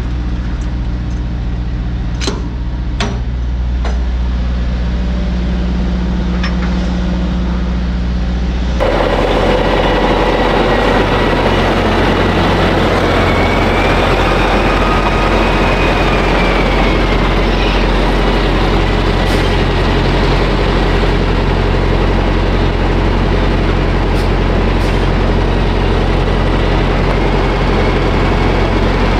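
Semi-truck diesel engine running close by: a low, steady idling hum with a couple of clicks. About nine seconds in the sound cuts to a louder, rougher engine noise with a faint whine that rises and falls.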